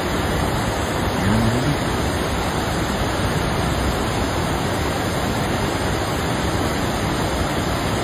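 River water rushing over a shallow, rocky riffle: a steady, even rush.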